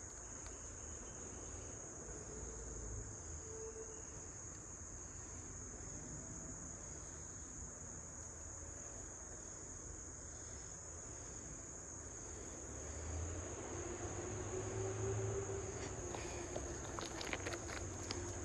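Insects trilling in one steady, unbroken high-pitched chorus. Late on, a low rumble and a few faint clicks come in beneath it.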